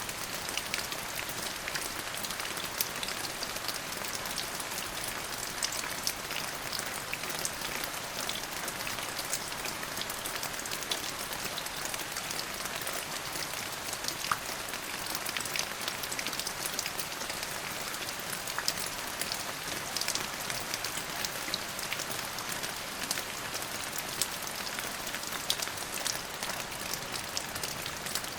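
Steady rain falling on a surface, an even hiss sprinkled with the ticks of individual drops.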